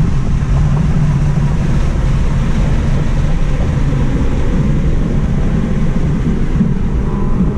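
Loud, steady wind and road noise in the cabin of a Tesla Model 3 driving at speed on track, a low rumble under a broad hiss, as the car slows from about 80 to 50 mph.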